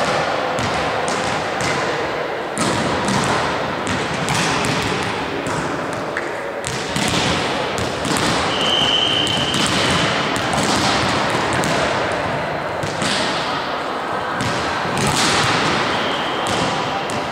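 Volleyballs being hit and bouncing on a gym floor: an irregular run of thuds and slaps, several a second, in a large hall. There is a brief high squeal about eight and a half seconds in.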